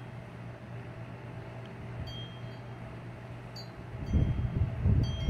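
Wind chimes tinkling a few brief times in storm wind, over steady low background noise. A louder, uneven low rumble comes in about four seconds in.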